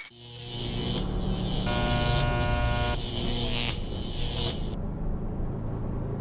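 Motor vehicle engine sound effect, a steady buzzing run that swells in at the start. A steady buzzing tone sounds over it for about a second in the middle, and the high hiss drops away about three-quarters of the way through.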